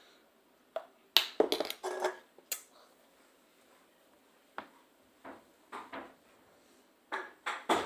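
Kitchen things being put away: a string of sharp clinks and knocks of dishes, cutlery and cans, several in quick succession in the first two seconds, a few softer ones midway, and another quick cluster near the end.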